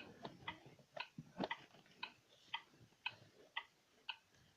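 Regular light ticking, about two ticks a second, evenly spaced like a clock or a wind-up timer.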